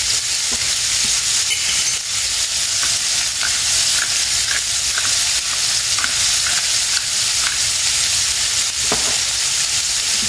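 Bite-sized pork pieces frying in rendered bacon fat in the base of a tagine: a steady sizzle with small scattered crackles as the meat browns.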